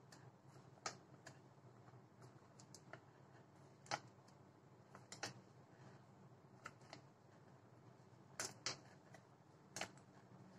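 Near silence broken by a few faint, scattered clicks and taps from a plastic scraper card smoothing whipped cream around the side of a cake on a turntable.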